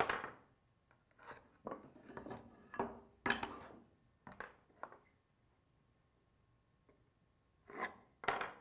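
Layout lines being scored and drawn along a try square on a wooden board: a run of short scratching strokes over the first five seconds or so, a pause, then two more strokes near the end.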